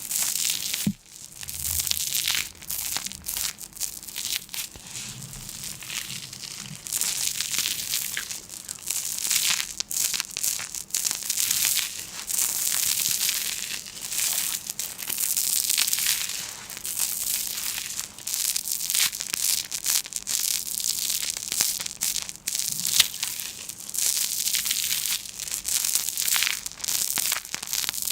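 Continuous crinkling and crumpling of a thin, crackly material being squeezed and handled, in irregular surges of dense little crackles.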